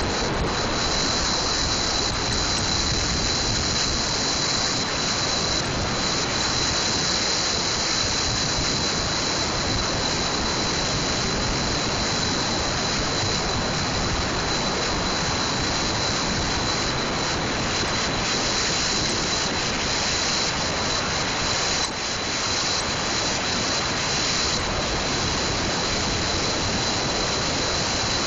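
Steady rushing road and wind noise from a car driving across a suspension bridge.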